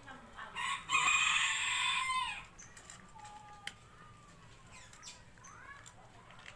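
A rooster crowing once, a single call of nearly two seconds that ends on a falling note; a few faint chirps follow.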